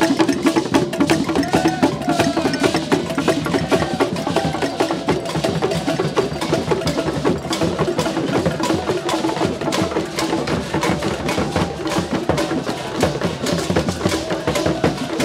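Traditional drum ensemble playing a fast, continuous rhythm, with many sharp, clicking strikes over the drums.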